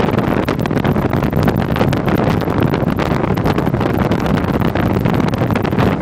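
Motorboat under way, its engine running steadily while wind buffets the microphone.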